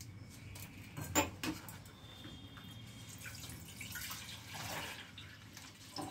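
Kitchen sounds: two sharp knocks a little over a second in, then water dripping and trickling.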